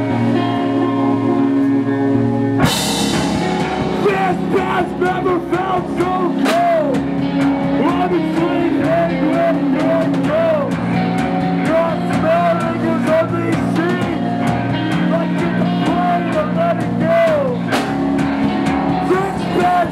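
Live rock band: a held guitar chord rings, then about two and a half seconds in the drums crash in and the full band plays on, with guitars and drum kit.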